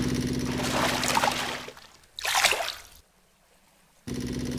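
Cartoon sound effects: a steady low hum fades out, then a short burst of splashing water follows about two seconds in. After a gap of about a second with nothing, the hum comes back near the end.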